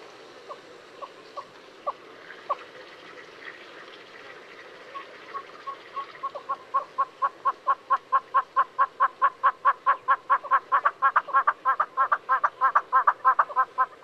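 Southern yellow-billed hornbill calling. A few spaced single notes come first, then from about five seconds in a run of repeated notes that quickens to about five a second and grows louder, ending abruptly near the end.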